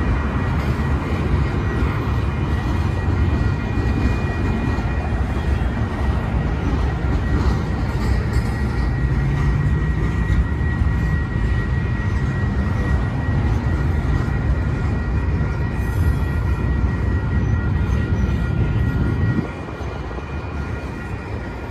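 Freight cars of a long Union Pacific train rolling through a level crossing: a continuous heavy rumble and clatter of steel wheels on the rails, with faint steady high ringing tones above it. The rumble eases noticeably about nineteen seconds in.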